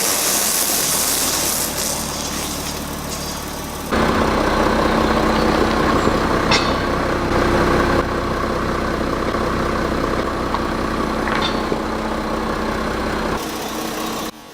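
A car engine running steadily at low revs, in cut-together segments that change abruptly about four seconds in and near the end. Two brief cracks are heard, about six and a half seconds in and again about eleven seconds in.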